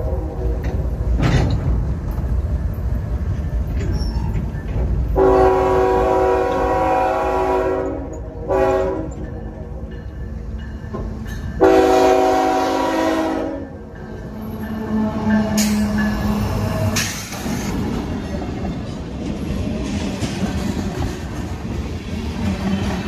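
CSX diesel freight locomotive's multi-chime air horn blowing a long blast, a short one and another long one over the steady rumble of the passing train.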